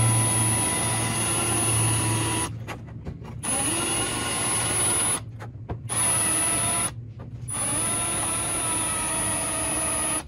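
Cordless drill with an oversized bit reaming out drilled holes in an aircraft door frame, run slowly to set the depth. Its motor whines steadily in four runs, with three brief stops between them.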